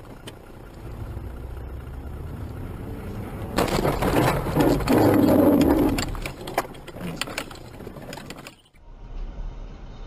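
Car road and engine noise, then a sudden loud car collision about three and a half seconds in, with crunching and clattering of debris for a couple of seconds before it dies away. The sound cuts off suddenly near the end, giving way to a steady road rumble.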